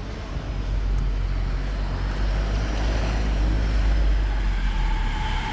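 City street traffic noise: a steady low rumble of passing cars and buses, swelling as a vehicle goes by close, loudest about four seconds in.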